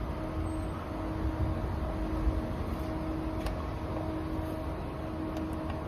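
Alinco LHR-21 low-temperature rice storage cabinet running under power: its cooling unit gives a steady mechanical hum with a faint steady tone, showing the unit works.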